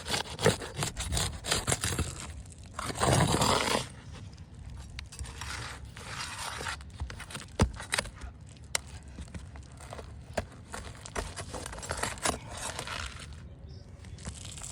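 Roofing nails being pried out from under asphalt shingles: repeated scraping and tearing as the shingles are worked loose, with sharp clicks and knocks. The loudest stretch of scraping comes about three seconds in.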